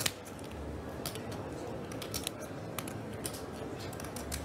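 Poker chips clicking at the table in scattered, irregular sharp clicks over a low room hum.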